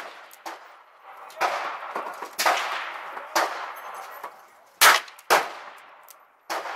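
Gunshots at a shooting range from a .38 revolver and other guns on the firing line: several sharp shots at uneven spacing, each with a short ringing tail. The two loudest come about half a second apart around five seconds in.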